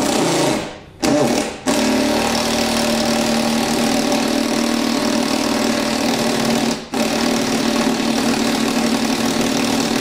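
Cordless power driver with a 10 mm socket running steadily on a tight bolt inside a car door, with short stops about a second in and near seven seconds. The bolts are super tight and slow to come out.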